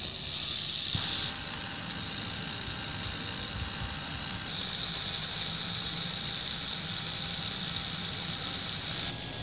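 Small toy DC motor whirring steadily, spinning the blade and flywheel of a miniature chaff cutter as grass is fed in. The high whine steps up about a second in, grows stronger from about four and a half seconds, and drops just before the end.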